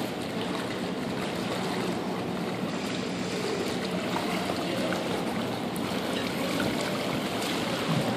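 Steady sloshing and lapping of pool water churned up by an inflatable zorb ball rolling across the surface.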